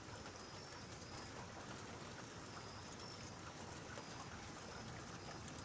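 Steady rain falling in a thunderstorm, an even hiss with scattered faint drop ticks.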